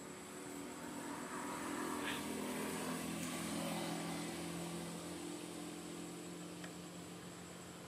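A motor vehicle's engine passing by on a road, its hum swelling over the first few seconds and then slowly fading away.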